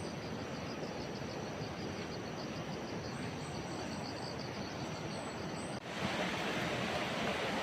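Outdoor ambience: a steady rushing noise with insects trilling in rapid high pulses and a few high chirps. About six seconds in it cuts abruptly to a louder, brighter rush without the insects.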